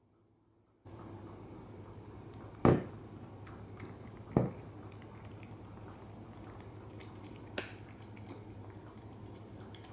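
Puppy eating dry kibble from a bowl on a wooden floor: small crunching and clicking bites. Two sharp knocks come between two and four and a half seconds in, the loudest sounds of the clip.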